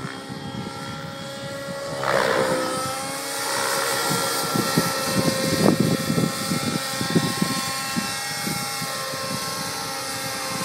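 Align T-Rex 700N nitro RC helicopter flying, its glow engine and rotors giving a steady whine that grows louder from about two seconds in as it comes down into a low pass.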